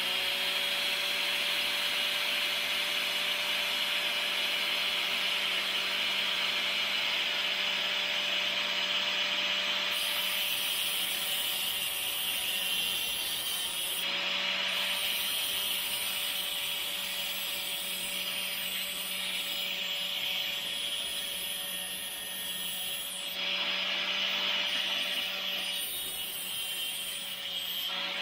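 Grinder with a thin 1/16-inch cutoff disc running at speed and cutting into a steel coil spring, a steady motor whine with a harsh grinding hiss. The whine dips briefly about halfway through and again later.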